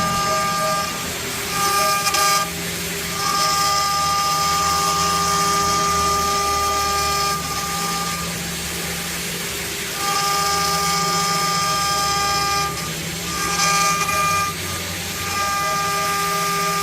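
CNC wood lathe running: its stepper motors whine on a steady set of pitches in stretches of one to four seconds, stopping and starting again as the axes move, with a hiss over some stretches and a steady low hum beneath.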